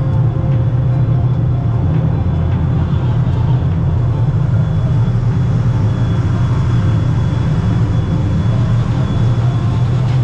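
Steady low rumble of a tender boat's engine running alongside the ship.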